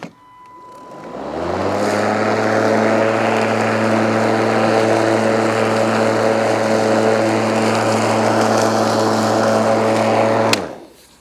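Greenworks 40V cordless lawn mower's electric motor and blade spinning up over about a second to a steady hum while mowing, then winding down quickly after a click near the end as it is switched off.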